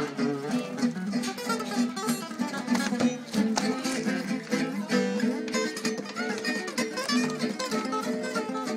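Gypsy-jazz acoustic guitar with a cutaway and small soundhole (Selmer-Maccaferri style), played solo in fast runs of plucked notes mixed with chords.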